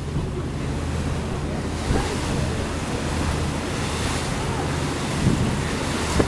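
Tour boat's engine running with a steady low drone under the rush of water along the hull, with wind buffeting the microphone.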